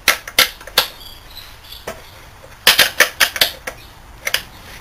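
Sharp metallic clicks and clinks of hand tools and chainsaw parts being handled. They come in two quick clusters, one just after the start and one about three seconds in.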